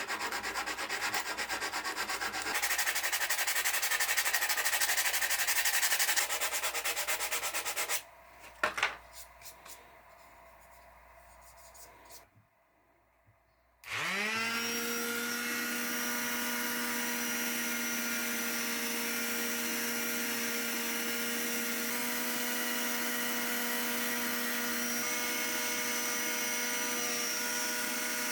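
Sanding: a dense, fast scratching for about eight seconds, then a short quiet gap with a click. About halfway through, a power tool's motor spins up with a rising whine and then runs steadily.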